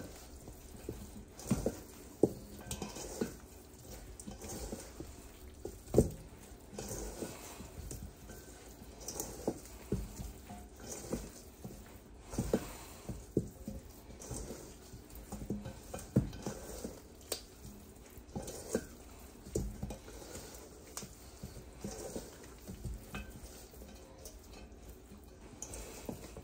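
Hands kneading raw chicken pieces in a wet jerk seasoning paste in a stainless steel bowl: moist squishing, with irregular small knocks of hand and chicken against the metal bowl.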